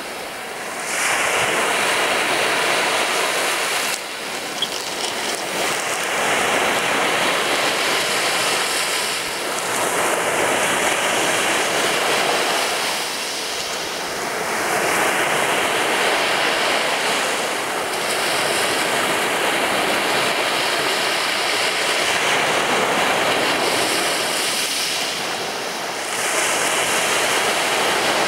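Sea waves breaking on a sandy beach, the surf swelling and easing in surges about every four seconds.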